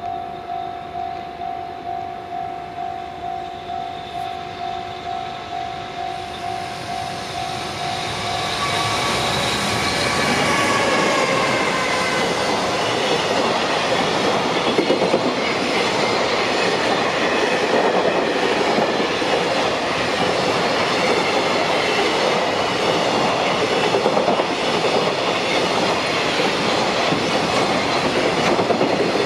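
A Japanese level-crossing warning bell rings in an even rhythm of about two and a half strokes a second. About nine seconds in, a JR Freight EF210 'Momotaro' electric locomotive hauling freight wagons reaches the crossing and drowns it out. A falling whine comes as the locomotive goes by, followed by the long, dense rumble and clickety-clack of the wagons' wheels over the rails.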